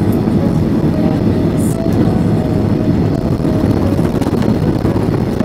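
Cabin noise of a Boeing 737-800 with CFM56 engines rolling along the runway: a loud, steady engine roar and rumble.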